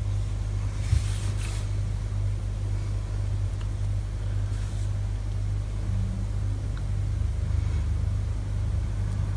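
A steady low mechanical hum, with a single faint click about a second in.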